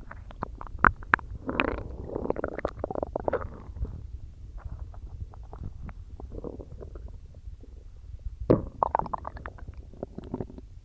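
Stomach gurgling from a belly full of soda and swallowed air: irregular bubbly pops and squelches, with a loud cluster about a second in and another near the end and quieter crackling between.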